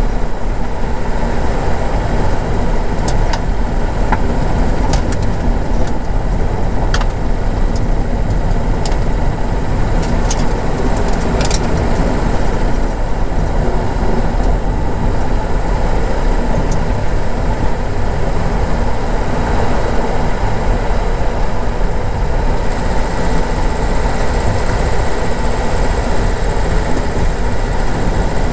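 Car driving over a rough unsurfaced track, heard from inside the cabin: a steady rumble of engine and tyres, with a few sharp clicks and knocks in the first half.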